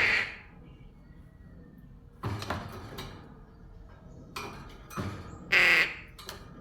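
Young crow calling: two loud, harsh caws, one right at the start and one near the end, with quieter calls and rustles between.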